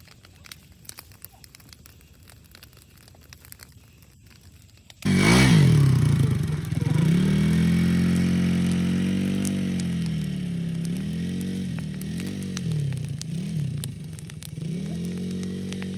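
Faint scattered crackles and ticks, then about five seconds in an ATV's small petrol engine starts up loud and runs, its revs rising and falling several times.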